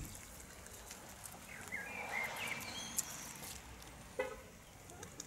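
A car passing on a wet road, its tyre hiss swelling and fading. There is a short, sharp knock about four seconds in.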